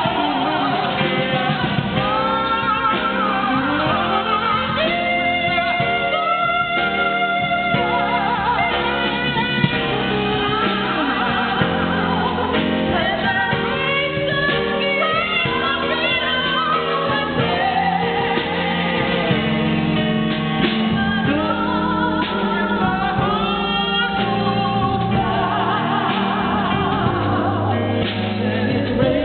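Live singing with instrumental accompaniment, the voice holding long, bending notes over the band.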